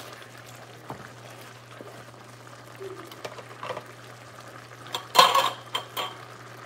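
Curry simmering and bubbling in a wide pan while a wooden spatula stirs and scrapes against it, with scattered clicks and a louder clatter of utensil on pan about five seconds in. A steady low hum runs underneath.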